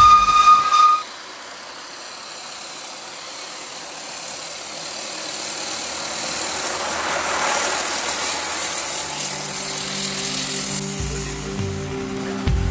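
A short, high whistle blast from a Sentinel steam waggon. Then a hissing rush of steam waggons going by, which swells and eases off about seven or eight seconds in, and a lower steady engine hum joins near the end.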